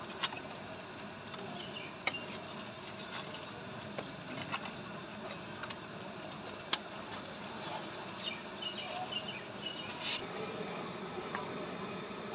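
Steady background din of a street market, with a handful of sharp clinks and knocks from metal serving utensils at the stall.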